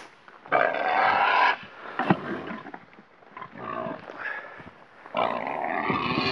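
Pigs grunting and squealing in three rough bursts, the first about half a second in and the last starting near the end.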